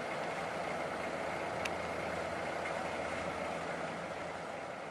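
A steady engine hum, like a vehicle engine idling.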